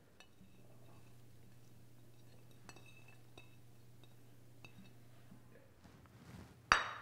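A ceramic plate's edge tapping and clinking lightly a few times against a glass bowl as chopped peppers and cilantro are pushed off it, then one louder clatter near the end as the plate is set down on the stone counter.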